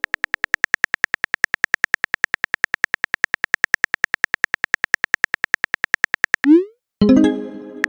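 Phone keyboard click sound effect ticking rapidly and evenly, about ten clicks a second, as a text message is typed. About six and a half seconds in comes a quick rising swoosh, the message-sent sound, then a brief pitched chime.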